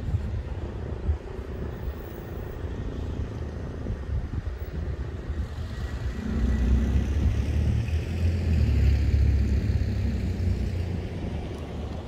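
A passing vehicle: a low rumble that swells from about six seconds in, peaks around nine seconds, then fades.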